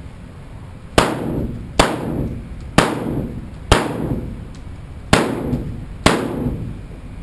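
Six gunshots fired in a string, roughly one a second with a slightly longer gap before the fifth, each followed by a fading echo.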